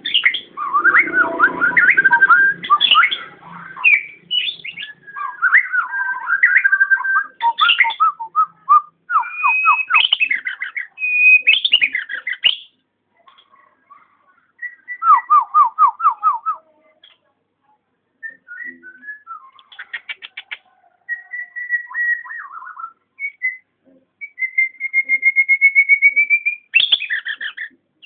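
Nias hill myna whistling and calling: a loud, varied run of clear whistles, rapid rattling trills and short chattering notes, broken by a few brief pauses, with a long, slightly rising whistle near the end.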